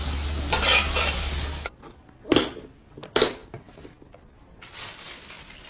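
Food sizzling in a wok with a metal spatula scraping through it, cutting off abruptly; then two sharp plastic clacks a little under a second apart as a food container's lid is snapped shut, and the sizzling comes back near the end.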